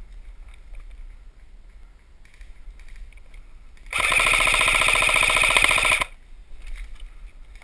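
Airsoft rifle firing one full-auto burst of about two seconds, a rapid string of shots over a whirring mechanism, as suppressing fire. It starts about four seconds in and cuts off sharply.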